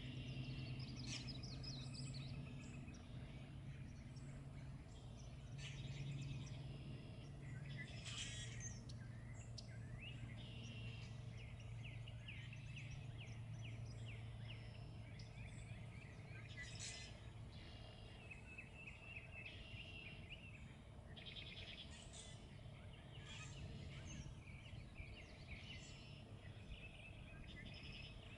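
Wild songbirds chirping and trilling over and over, a busy mix of short calls, above a steady low hum.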